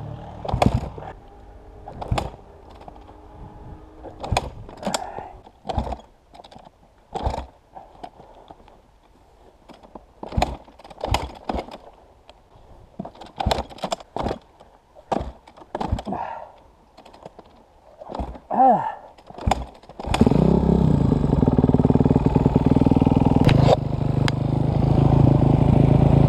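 Dirt bike handled at a standstill, with a string of irregular knocks and clatter. About twenty seconds in, its engine runs loud and steady as the bike is ridden.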